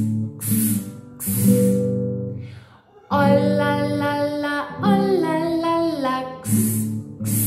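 Acoustic guitar strummed in a slow rhythm, with a woman singing a children's song to it. Her voice comes in about three seconds in, after a brief dip, and the strumming carries on near the end.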